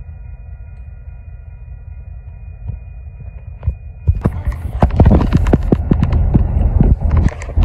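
Low steady rumble of approaching diesel locomotives, an SD40F leading and an ES44DC trailing, with a faint steady whine above it. About four seconds in, a much louder run of irregular thumps and knocks starts and keeps on.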